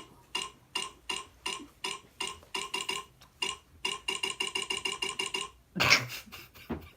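Played sound effect of a clock ticking, about three ticks a second, that speeds up to about eight a second, stops, and is followed about six seconds in by a single loud, short burst.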